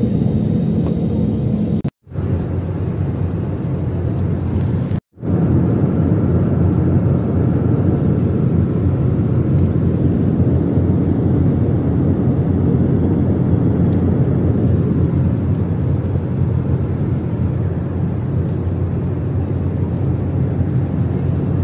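Steady rumble of a passenger jet's cabin in flight or taxi: engine and airflow noise heard from inside the cabin, with a low hum running through it. It drops out abruptly twice, about two and five seconds in.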